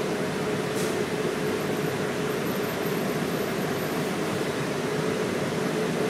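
Steady drone inside a moving transit bus: engine and road noise with a constant low hum.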